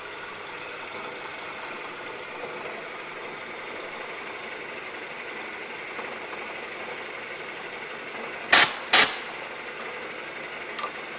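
Bridgeport milling machine running steadily as a half-inch two-flute end mill cuts a keyway along a shaft under table feed. About two-thirds of the way through, two sharp knocks come in quick succession.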